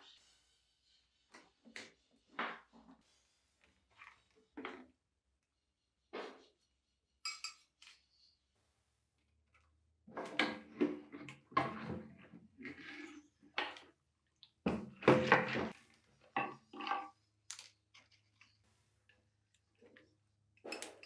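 Scattered clicks and light knocks, then a busy run of clattering and knocking from about ten seconds in. This is metal being handled in a plastic tub of electrolysis solution: wires and clips, and the rusty antique cast-iron clothes iron.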